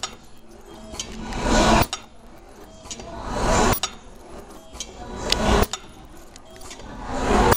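Ultrasonic slitting machine cycling: a rising mechanical whir that builds for about a second and then stops abruptly with a click, repeating about every two seconds, four times.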